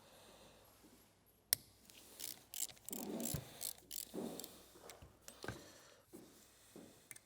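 Hand tools working on the metal parts of an oil pump being dismantled: a sharp metallic click about a second and a half in, then a few seconds of quick, uneven clicking and rattling.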